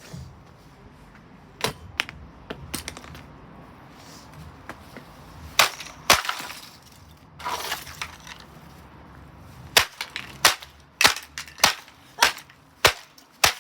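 Plastic casing of a Blaupunkt fan heater being smashed: scattered sharp cracks and crunches of breaking plastic, then from about ten seconds in a steady run of hard blows roughly every half second.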